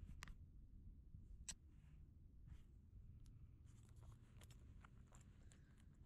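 Near silence: a few faint clicks and scratches, likely handling noise from hands on the rod, reel and camera, which come thicker from about four seconds in, over a low rumble.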